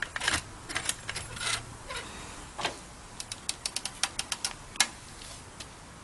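Floor jack being pumped to lift a car: a string of sharp metallic clicks and knocks, coming quickest, about five a second, in the middle.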